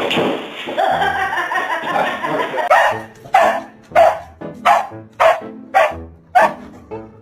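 A dog barking seven times in a steady series, a bit under two barks a second, over background music.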